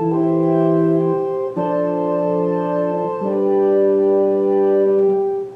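Baldwin HT2 electronic organ playing held chords, changing about every second and a half, with a brief break near the end before the next chord.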